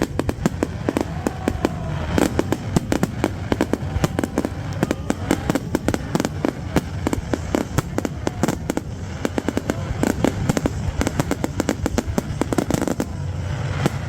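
Fireworks display: a dense, rapid barrage of cracks and bangs from bursting shells, many a second, over a steady low rumble.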